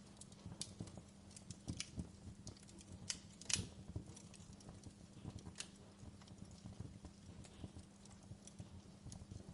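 Wood fire crackling faintly: irregular pops and snaps over a low steady hum, with one louder pop about three and a half seconds in.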